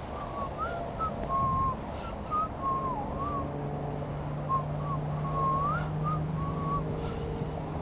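A person whistling a wandering tune in short phrases. A low steady drone comes in about two and a half seconds in and continues under it, over light wind noise on the microphone.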